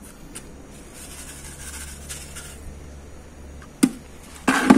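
Granular pool chlorine being scooped into a bucket of water: light rustling, then a sharp click a little before the end and a brief, louder clatter of the scoop against the bucket at the very end.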